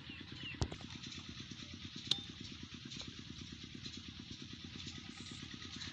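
Peter 25-horsepower diesel engine on a tubewell pump idling: a faint, steady low pulsing, with a sharp click about half a second in and another about two seconds in.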